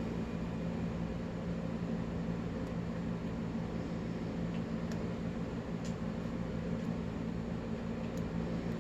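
A steady low hum and hiss of background noise, with a few faint clicks about five to six seconds in, plausibly a lock pick working the pins of a padlock.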